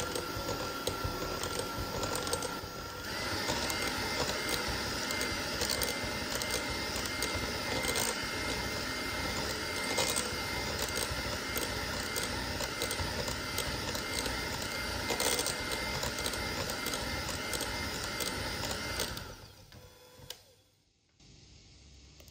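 Electric hand mixer running steadily, beating butter and sugar for cookie dough; its whine steps up in pitch about three seconds in, and it switches off near the end.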